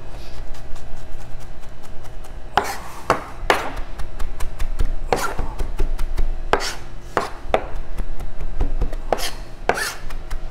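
Chef's knife finely chopping fresh cilantro on a plastic cutting board: rapid knife taps, several a second, broken by louder scraping strokes of the blade across the board.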